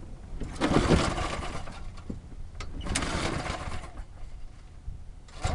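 A 1985 Briggs & Stratton single-cylinder push-mower engine pulled over twice on its recoil starter cord, each pull about a second long, turning over without starting. It is a cold start: the engine has not been run for a year.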